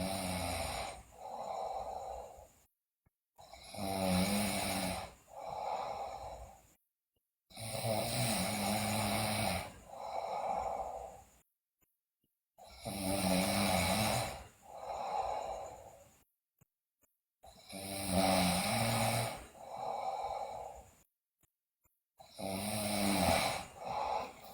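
A sleeping girl snoring loudly, each breath heard as a longer snore followed by a shorter one, with near-silent pauses between, repeating about every four to five seconds.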